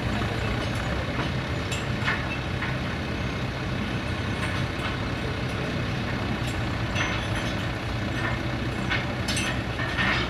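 Volvo FH16 heavy truck's diesel engine idling steadily, with a few scattered clicks and knocks over the rumble.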